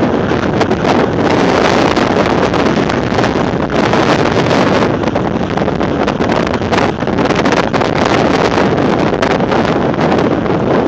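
Storm wind blowing hard across the microphone: a loud, unbroken rush of noise broken by frequent short buffets.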